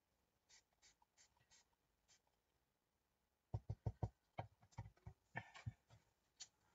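Handling noises at a craft table while colouring with inks: a few faint clicks, then from about halfway a quick run of about ten light taps and knocks.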